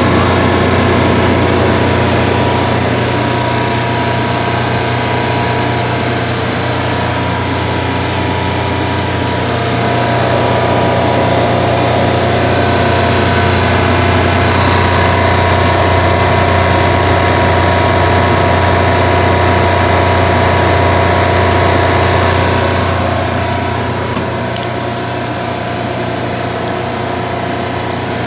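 The engine of a Denyo 300A soundproofed engine-driven welder-generator running steadily, a constant low drone with a few steady tones above it. It gets slightly quieter about four seconds before the end.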